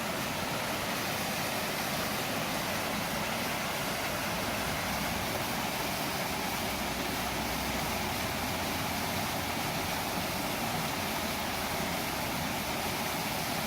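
Steady rush of water from a small creek waterfall, an even hiss with no breaks.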